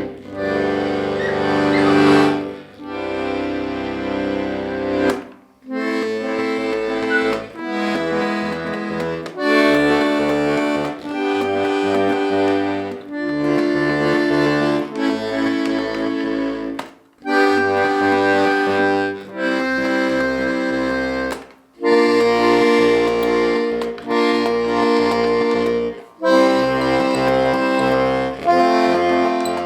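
Hohner Corona IIIR three-row diatonic button accordion in G-C-F playing a tune: held treble chords over short, repeated bass notes, in phrases broken by brief pauses.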